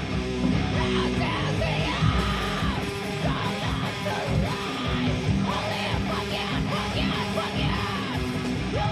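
Heavy metal music with a yelled and sung lead vocal over a dense, loud band.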